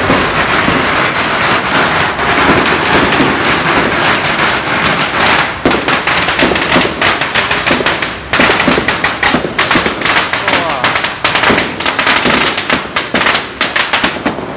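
Firecrackers going off in a rapid, dense crackle of bangs, loud throughout, with the separate reports growing sharper and more distinct about halfway through. Voices of a crowd are heard underneath.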